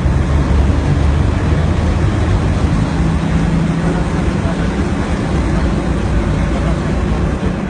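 Amphibious duck boat's engine running steadily under way, a low, even hum with rushing noise over it.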